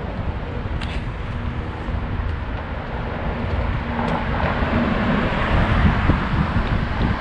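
Car driving past on the road beside the walkway, its engine and tyre noise growing louder from about four seconds in, over a steady low rumble of traffic.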